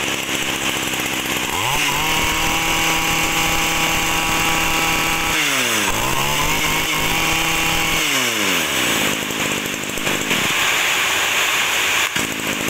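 Stihl FS 25-C 26 cc two-stroke brush cutter engine running. It idles, is revved up about two seconds in and held at high speed, drops briefly, is revved up and held again, then falls back to idle for the last few seconds.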